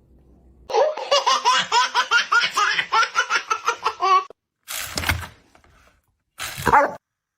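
A person laughing hard in a rapid, high-pitched run of about five bursts a second for some three seconds, then two short bursts near the end.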